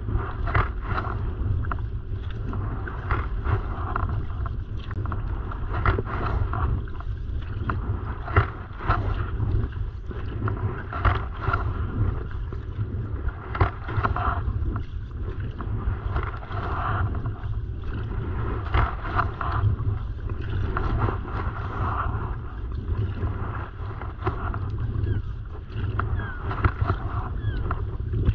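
Choppy lake water splashing and sloshing against a kayak's hull and paddle blades while paddling, in short irregular splashes over a steady low rumble of wind on the microphone.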